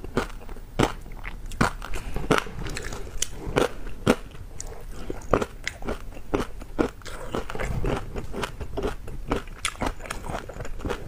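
Close-miked crunching and chewing of crispy pork belly crackling: many sharp, irregular crunches, several a second, as the puffed skin breaks between the teeth.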